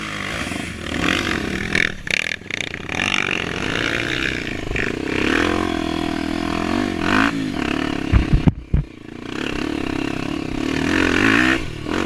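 Trail motorcycle engine revving up and down, its pitch rising and falling. A few heavy knocks come about eight seconds in, followed by a brief dip before the engine revs again.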